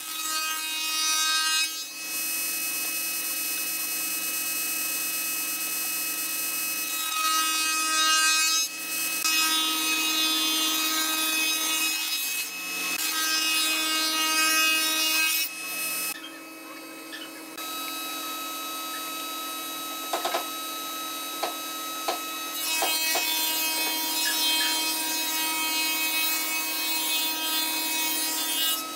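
Table-mounted router running with a steady whine while its cutter moulds a profile into the edge of a hardwood board fed along the fence. The cutting noise comes and goes in several passes, with a few sharp clicks in the later part.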